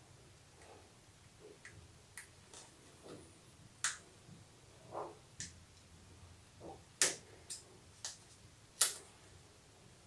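Fingernails picking at a sticker to lift its backing paper: faint, scattered paper crackles and clicks, with the loudest ticks about seven and nine seconds in.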